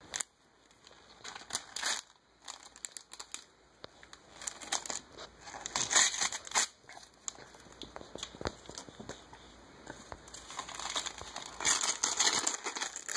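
Tissue paper and a paper gift bag crinkling and rustling in irregular bursts as a small child pulls the tissue out of the bag, loudest about six seconds in and again near the end.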